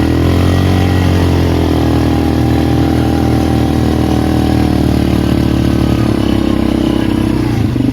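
Polaris Magnum 425 ATV's single-cylinder four-stroke engine pulling steadily under throttle while the quad pushes through dry powder snow. Revs rise at the start and drop off near the end.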